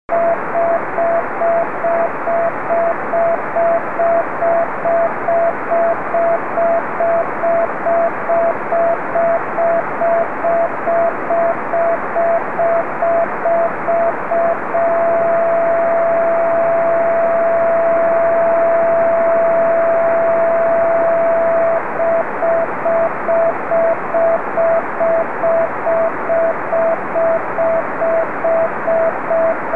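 Unidentified CW beacon on the 70 cm ham band (432.075 MHz), heard through a receiver as a steady beat tone of roughly 650–700 Hz over radio hiss. The tone is keyed in evenly spaced short dashes, held as an unbroken carrier for about seven seconds around the middle, then keyed in dashes again.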